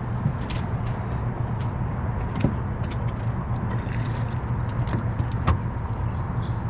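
Boat's outboard motor idling steadily with a low hum, with scattered small clicks and knocks from gear being handled on board.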